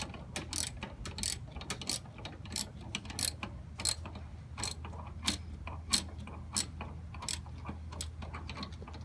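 Hand ratchet with socket clicking in short bursts, about one to two back-strokes a second, backing a nut off the master cylinder mounting on the firewall.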